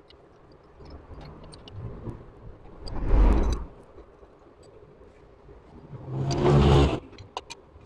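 Light metallic clicks and taps of gearbox shafts and gears being seated into a motorcycle engine's aluminium crankcase. Twice, a louder rushing sound lasts under a second, once about three seconds in and once about six seconds in.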